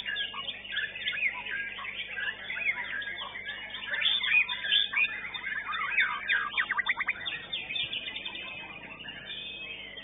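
White-rumped shama (murai batu) singing a fast, varied song of chirps and whistles, with a quick run of rapidly repeated notes about six and a half seconds in. The song thins out near the end.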